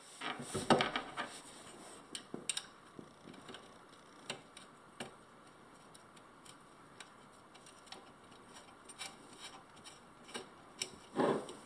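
Small metal clicks and ticks of a nut being turned by hand onto a pump mounting bolt, loudest in a cluster in the first second, then sparse single ticks. A brief rustle comes near the end.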